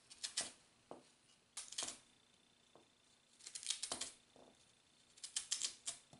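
Knife cutting chunks off a peeled pear held in the hand, the pieces dropping onto a plastic cutting board: four short clusters of crisp clicks and taps, one every two seconds or so.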